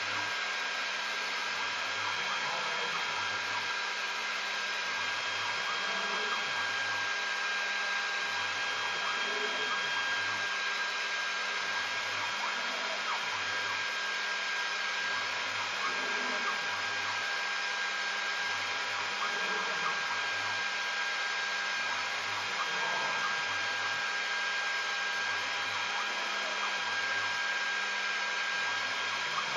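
Homemade CNC vertical mill air cutting: the electric spindle runs with a steady high whine and hiss. Under it the axis stepper motors hum low in short spells, starting and stopping about every second as the table moves from hole to hole.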